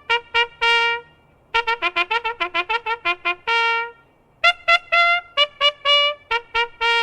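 Trumpet fanfare: bursts of quick, sharply tongued notes, each phrase ending on a longer held note, repeated with short pauses between phrases.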